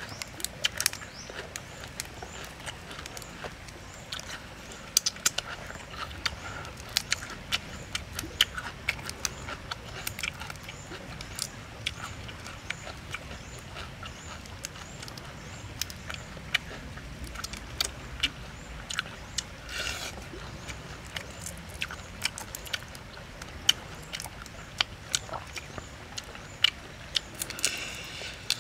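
Close-up eating sounds from a person peeling and eating cooked shrimp by hand: irregular crackles of shell being broken and picked apart, with chewing and mouth noises, many short clicks, some louder than others.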